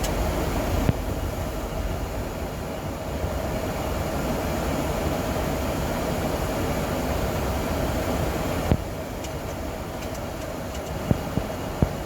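Steady flight-deck noise of a Boeing 737 in flight: rushing airflow and air-conditioning hum with a faint steady tone. The noise steps down a little with a click about three-quarters of the way through, and a few more sharp clicks come near the end.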